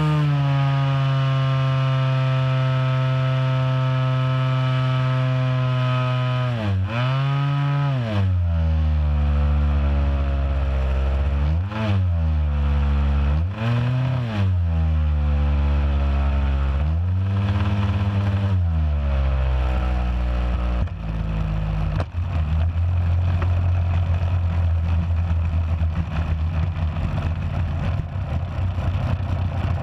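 Ultra Stick RC airplane's engine and propeller, heard close up from on board: running steadily at high throttle, then throttled down and back up several times in swooping changes of pitch on the landing approach. About two-thirds through it drops to a lower, steady idle as the plane touches down, with rattling and scraping from the wheels rolling over dirt and gravel.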